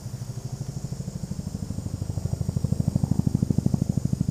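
Bell UH-1 Huey helicopter's two-blade main rotor beating in a fast, even pulse, getting louder over the last couple of seconds as it approaches.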